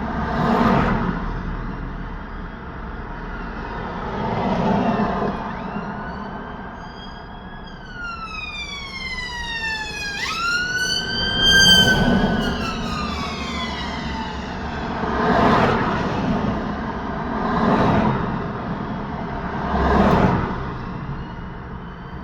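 Road traffic with vehicles passing one after another, about six pass-bys. An emergency vehicle's wailing siren joins in, rising and falling slowly in pitch. It is loudest as it goes by about halfway through, then fades.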